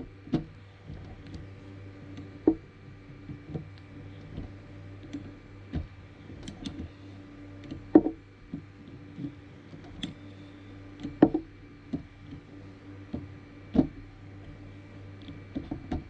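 Ratchet with a 9 mm socket clicking now and then, with a few sharp metal knocks, as a hot 3D-printer nozzle is unscrewed from its heater block. A steady low hum runs underneath.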